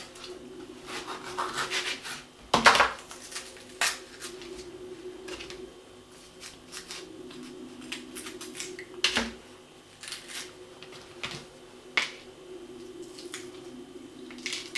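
Kitchen knife cutting a red bell pepper on a plastic cutting board: scattered taps and scrapes of the blade against the board, the sharpest about two and a half seconds in, over a steady low hum.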